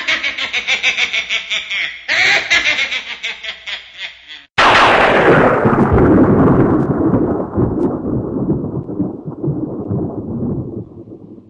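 Cartoon sound effects: about four seconds of rapid rattling clatter in two runs, then a sudden loud boom that rumbles on and slowly fades away, the way a thunderclap or blast dies down.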